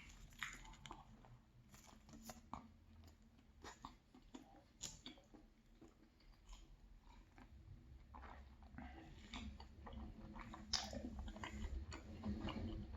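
A person chewing and biting into soft pastry close to the microphone: faint, scattered wet mouth clicks, growing busier and louder in the second half, with one sharper bite near the end.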